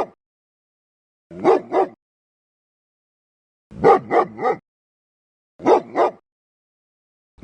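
Dog barking in short groups: two barks, then three, then two more, with silence between the groups.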